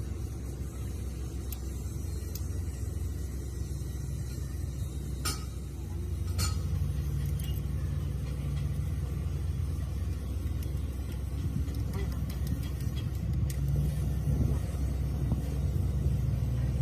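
A low, steady rumble that gets a little louder about six seconds in, with two sharp clicks or knocks just before.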